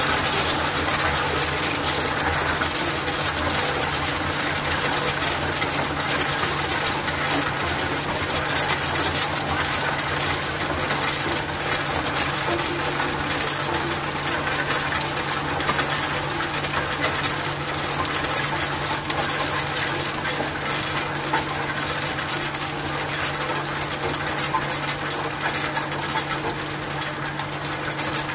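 Tube ice harvesting: clear ice cylinders clattering out of the outlet chute onto an ice pile in a stainless steel hopper. Under it runs the steady hum of the 5-ton-per-day tube ice machine.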